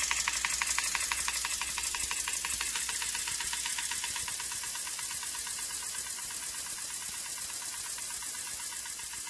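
Four-cylinder inline model steam engine with a distribution valve, running on compressed air: rapid, even exhaust beats over a hiss of air. After a couple of seconds the separate beats blur into a steady hiss.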